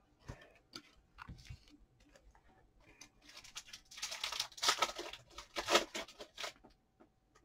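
A foil trading-card pack being torn open, with crinkling and tearing from about 3 to 6.5 seconds in. Light clicks of cards being handled come before it.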